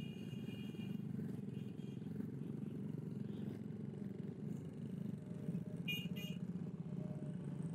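Motorcycle engine and road noise while riding slowly through street traffic: a steady low drone. A brief high tone comes about six seconds in.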